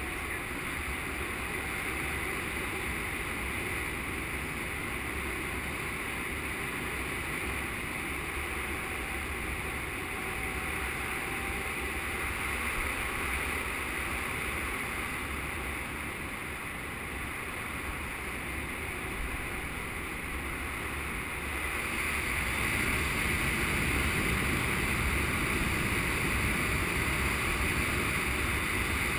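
Steady rush of airflow over a camera microphone in flight under a paraglider, growing a little louder about three quarters of the way through.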